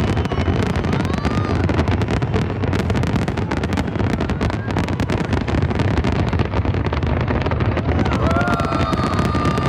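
Fireworks crackling and popping over a steady low rumble, with wind buffeting the microphone.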